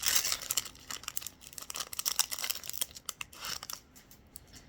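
Crinkling and tearing of a small Pokémon card pack's wrapper being opened by hand, with dense irregular crackles that thin out and die down near the end.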